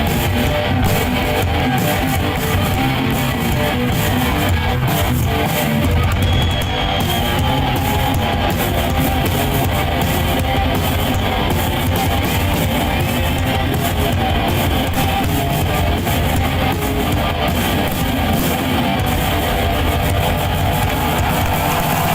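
Live rock band playing loud and steady, led by electric guitar.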